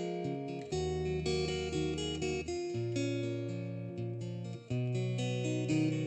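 Background music: an acoustic guitar playing plucked chords, changing chord about every two seconds.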